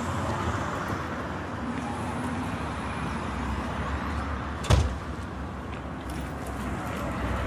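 Steady low car-engine rumble over outdoor background noise, with one sharp knock about two-thirds of the way through. After the knock the low rumble grows stronger as a vintage Pontiac sedan rolls slowly along at low speed.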